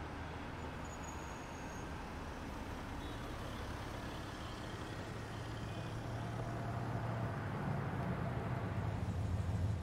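Steady low rumble of a motor vehicle's engine and road noise. It grows louder over the last few seconds, then cuts off abruptly.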